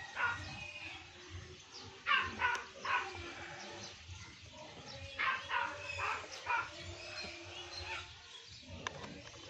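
A dog barking in short bouts of two or three barks at a time. Near the end comes one sharp click as the plastic latch on the Stihl FS120 brush cutter's air filter cover is turned.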